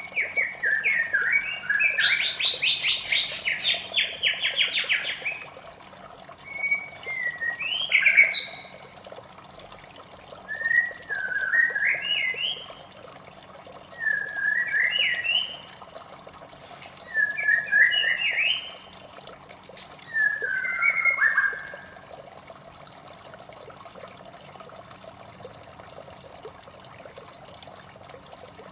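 White-rumped shama singing: a fast run of varied notes, then short rising whistled phrases every few seconds, stopping about three-quarters of the way through. A steady running-water sound lies underneath.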